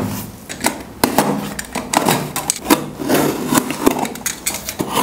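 A cardboard shipping box being handled and its packing tape slit open with a utility knife: irregular taps, clicks and scrapes of cardboard and blade, several to the second.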